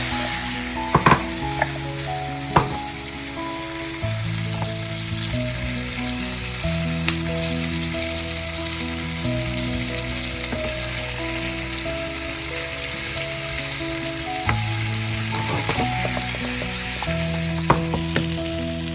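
Chicken pieces sizzling as they fry in hot oil with onions, with a few sharp clicks of a spoon against the pan near the start and near the end.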